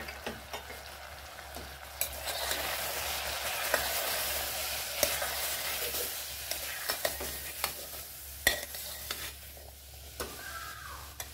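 Chickpeas and ground spices frying in oil in a pressure cooker, sizzling as a steel spoon stirs them, with repeated scrapes and clicks of the spoon against the pot. This is the masala being roasted with the chickpeas. The sizzle swells about two seconds in and eases near the end.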